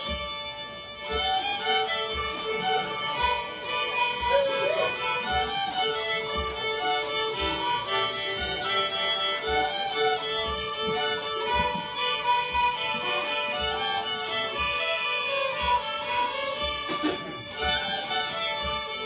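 A group of fiddles playing a fiddle tune together, with a steady low beat of thumps underneath at about two a second.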